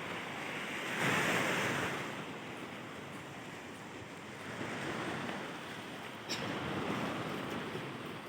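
Sea surf breaking on the beach in strong wind, rising and falling in surges, loudest about a second in. A brief click a little over six seconds in.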